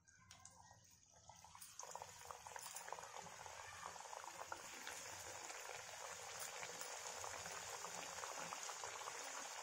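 Raw aloo kachoris deep-frying in hot oil in a kadhai: a sizzling, crackling hiss. It is faint at first, swells about two seconds in as the kachori goes into the oil, then holds steady.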